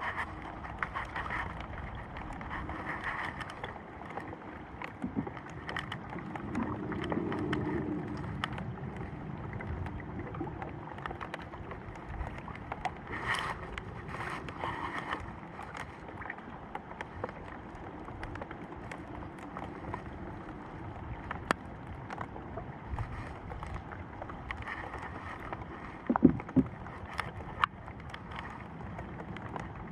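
Steady ambient noise on a small boat on the water, with scattered light knocks and clicks.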